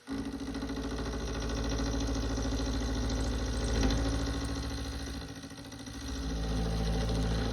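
Milling machine running and cutting a shoulder into a lathe tool holder blank: a steady mechanical hum that starts abruptly, dips about five seconds in, swells again and cuts off near the end.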